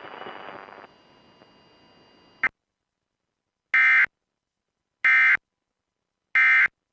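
Emergency Alert System end-of-message signal: three short, identical bursts of SAME digital data tones, about a second and a quarter apart, marking the end of the alert. Before them, faint radio hiss that drops away about a second in and a click shortly before the bursts.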